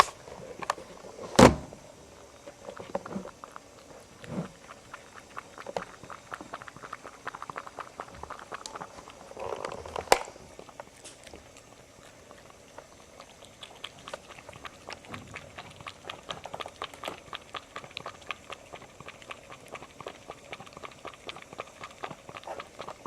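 A cat lapping lobster juice from a dish: a long, quick run of small wet clicks. Two louder knocks come in, about a second and a half in and again about ten seconds in.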